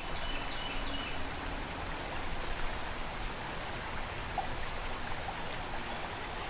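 Small stream running over a shallow riffle: a steady rushing water noise, with a few faint bird chirps in the first second.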